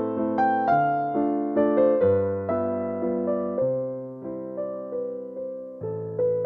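Background piano music: gentle chords and melody notes, each struck and fading, changing every half second to a second.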